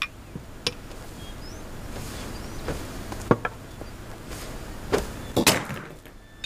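A few light knocks and clicks of small objects being handled at a table, then an enamelled metal bangle dropping onto the floor with a clatter near the end.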